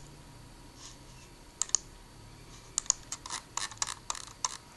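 Clicking on a laptop as a file is chosen for upload: a pair of sharp clicks about a second and a half in, then a quick run of clicks near the end.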